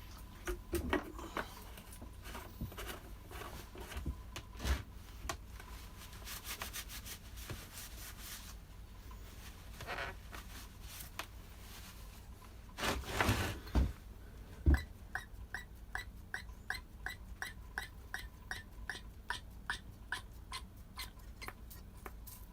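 Handling knocks and clunks on a brush cutter's plastic housing, then a quick regular run of squeaky clicks, about two to three a second, from the Stihl FS240's fuel primer bulb being pumped over and over. The bulb is split and leaks fuel when pressed.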